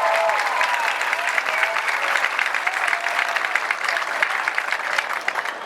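Audience applauding, with a few cheers rising over the clapping. The applause cuts off suddenly at the end.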